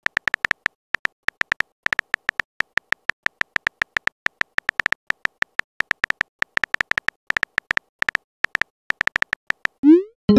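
Texting-app keyboard clicks: a quick, uneven run of short tapping ticks as a long message is typed. Near the end comes a short rising swoosh as the message is sent.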